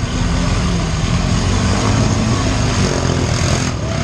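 ATV engine running hard under heavy load as the four-wheeler churns through deep mud, its pitch wandering slightly.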